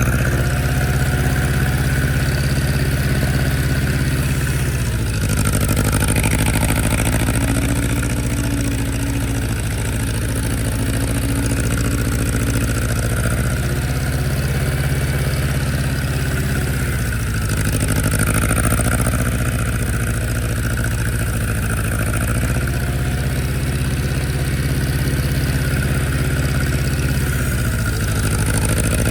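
An old tractor's engine running steadily, its speed stepping up and down every few seconds as it is worked.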